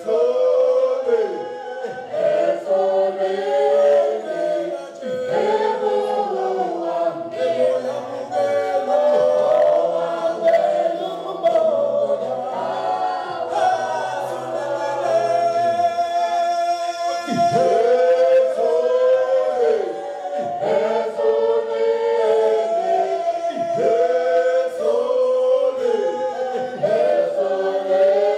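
Mixed choir of men's and women's voices singing unaccompanied in harmony, with a male lead singer on a microphone in front of the group.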